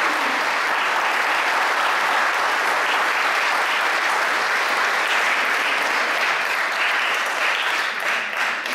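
Audience applauding steadily, the clapping thinning into separate claps near the end.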